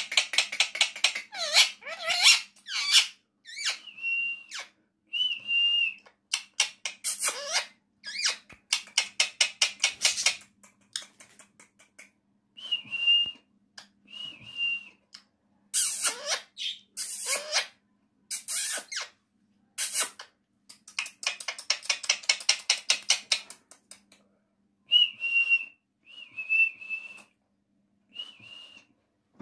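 Male rose-ringed parakeet (Indian ringneck) calling in bursts: short level whistles alternate with fast chattering runs and a few sharply falling squawks, with brief pauses in between.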